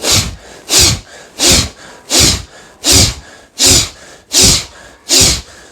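A man blowing forcefully out through his nose again and again, eight sharp, even puffs about 0.7 seconds apart. These are rapid nasal exhalations done to clear phlegm from both nostrils.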